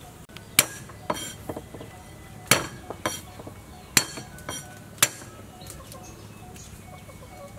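Kitchen knife chopping garlic cloves on a wooden cutting board. The blade gives a string of sharp, uneven knocks on the board, and they stop about five seconds in.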